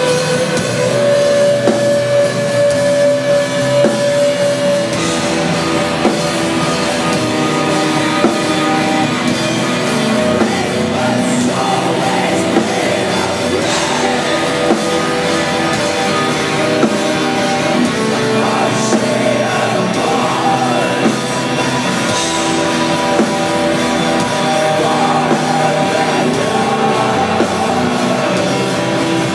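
A black metal band playing live: distorted electric guitars and drums played loudly and without a break, with singing over them.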